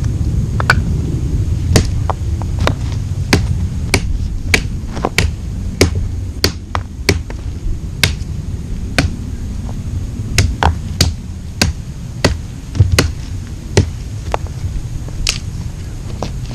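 Stones knocking against one another as they are set in place for a fire pit: sharp, irregular clacks, about one or two a second, over a steady low rumble of wind on the microphone.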